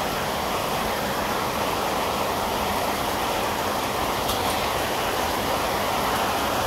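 Rain falling, a steady, even hiss.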